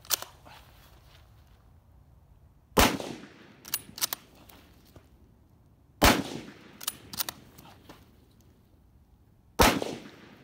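Three shots from an M1917 Enfield bolt-action rifle in .30-06, spaced about three and a half seconds apart, each dying away briefly. Each shot is followed by a quick pair of metallic clicks as the bolt is worked to chamber the next round.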